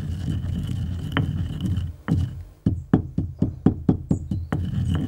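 Pestle knocking in a mortar, pounding acacia gum resin down to powder: a single stroke, then about halfway in a quick regular run of about ten strikes, roughly five a second.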